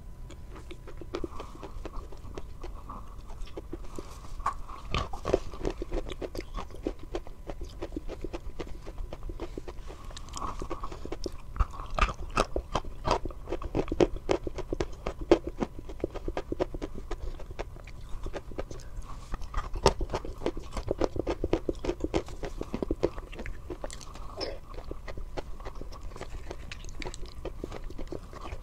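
Close-miked chewing and biting: soft white food, dipped in milk, being bitten and chewed, with many small sharp mouth clicks.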